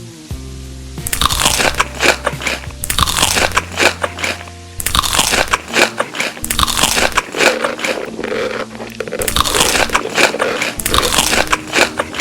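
Close-miked crunching of a person biting and chewing crisp food, in about six bouts of a second or two each, over background music.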